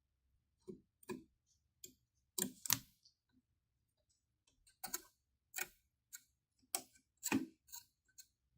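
Irregular clicks and light knocks, about a dozen in all, with a small cluster of louder ones near the three-second mark, from laptop parts and tools being handled.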